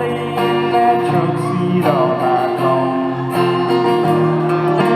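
Country music played live, with guitar.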